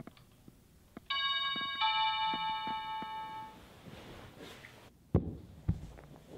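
Two-tone doorbell chime: a higher ding about a second in, then a lower dong, ringing out over about two seconds. Faint steady ticking about twice a second comes before it, and two heavy thumps of footsteps land near the end.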